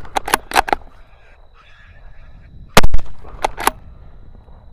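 A single loud .223 rifle shot from a Ruger American Ranch about three seconds in, followed by a few short, sharp clicks. A similar quick run of sharp clicks comes at the very start.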